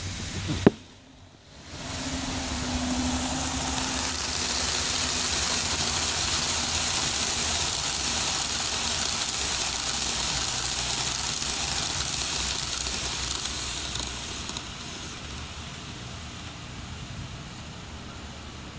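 Kato N scale model passenger train running past on the track, its wheels and small motor making a steady rolling whir that grows over the first few seconds and falls away about fourteen seconds in. A sharp click just under a second in.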